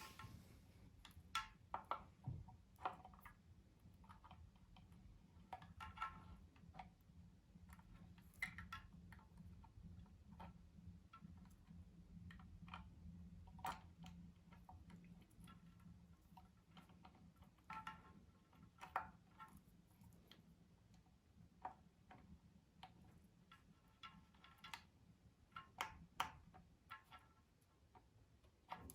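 Scattered small clicks and light metallic clinks, irregular, a few every couple of seconds, as of small parts and tools being handled, over a faint steady low hum.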